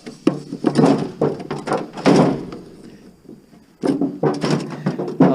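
Clanks, rattles and scrapes of sheet-metal appliance parts being handled and pulled apart, in two spells with a pause of about a second between them.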